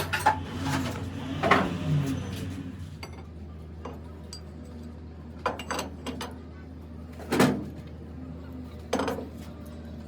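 Metal parts or tools clanking and clinking against each other in several separate knocks, over a steady low hum.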